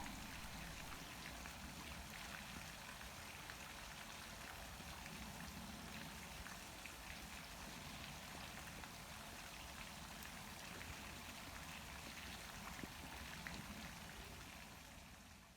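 Campfire crackling softly: a steady hiss with scattered small pops and snaps, fading out near the end.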